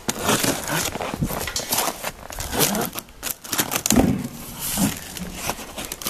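Cardboard shipping box being pulled and torn open by hand: a busy run of crackling, ripping and rustling of cardboard and packing tape.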